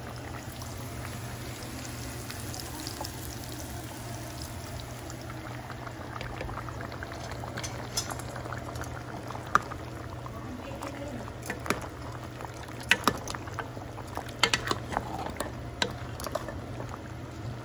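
Pot of balbacua (beef stew) bubbling on the stove over a steady low hum. From about eight seconds in come scattered sharp clicks and pops, more of them near the end.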